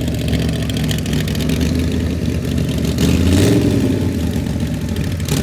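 Car engine running with a misfire, its note rising briefly about three seconds in before settling back.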